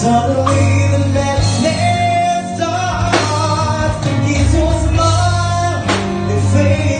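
A man singing a song into a microphone through a PA, over amplified backing music with a steady bass line and occasional drum hits.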